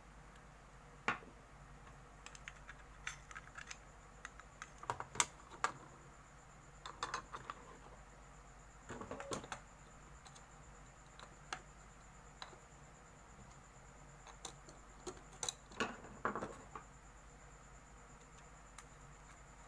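Scattered small clicks and taps, some in short quick clusters, of a motherboard's heatsink retention bracket and its screws being worked loose and handled.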